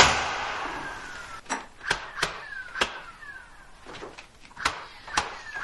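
Narrow crown stapler firing staples into a wooden pocket door frame, about eight sharp shots in quick succession, the first the loudest, several of them followed by a short falling whine.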